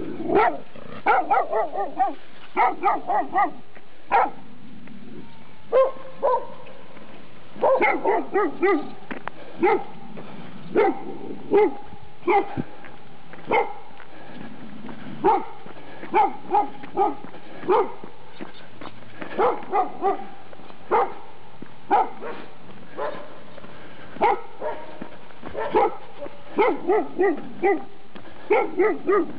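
A medium-sized dog barking repeatedly at a passing runner, in quick clusters of two to five short, sharp barks with brief gaps between, over a steady background hiss.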